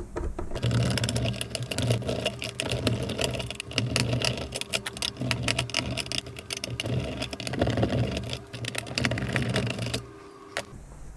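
Small powered screwdriver motor running almost continuously, with a steady hum and dense rattling clicks, while backing out screws; it stops about ten seconds in.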